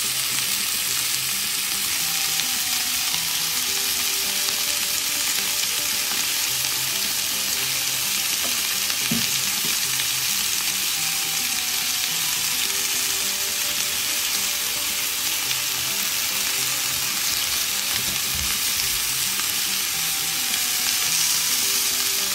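Chicken pieces shallow-frying in hot oil in a pan: a steady, dense sizzle, with a couple of soft knocks from the pan. The chicken is being lightly pre-fried so that it will not break up in the curry.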